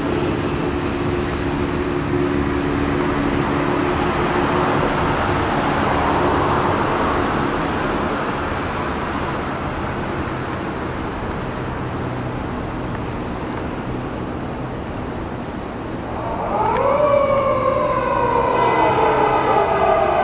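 Police patrol car on an emergency run over dense traffic and engine noise. A long steady horn blast sounds for the first several seconds. About three-quarters of the way in the siren starts up, rising quickly and then falling slowly in a long wail.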